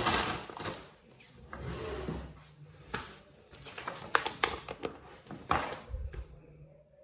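A clear plastic bag of flat-pack furniture fittings crinkling and rustling as it is pulled open and handled, loudest at the start and fading after about a second. Then scattered light clicks and knocks as the parts are handled, with a low thump near the end.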